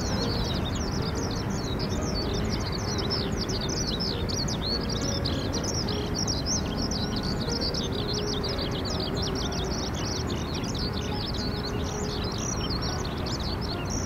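Many small birds chirping together in a dense, continuous chorus of quick high-pitched chirps, over a steady low background rush.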